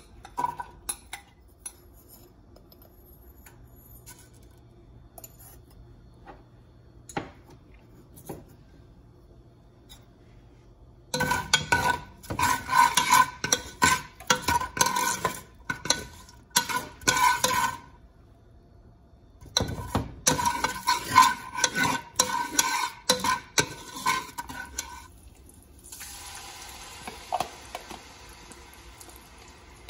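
A metal spatula scraping and stirring chopped onions frying in a stainless steel pot, in two spells of rapid strokes with the pot ringing under them. Near the end a steady sizzle starts as kimchi goes into the hot oil.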